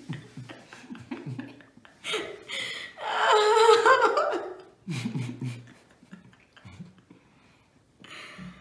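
A woman laughing out loud in a high, wavering burst lasting about a second, with softer low chuckles and murmurs before and after it.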